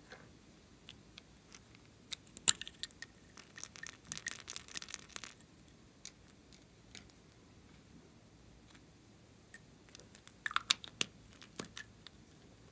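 Plastic lipstick tubes being handled: scattered clicks and taps of plastic, with a couple of seconds of dense clicking and rattling about four seconds in and another cluster of clicks near the end.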